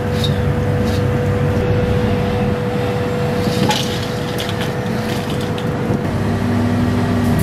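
Steady drone of a commercial kitchen's gas wok stove and exhaust fan, with a low hum throughout. A few sharp metal clinks come a little over halfway, as a perforated steel strainer tips fried fish pieces into a steel bowl.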